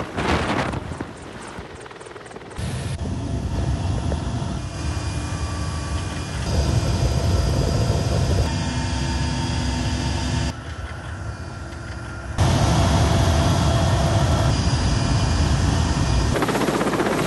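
Military helicopters, a Mi-24 among them: rotor and turbine engine noise with a steady whine over a low rumble. The sound jumps in level and tone several times where the footage is cut between shots.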